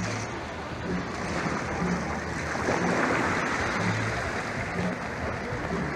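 Seawater splashing and sloshing around a dive ladder as helmeted divers step down into it, with a faint low pulse recurring roughly once a second underneath.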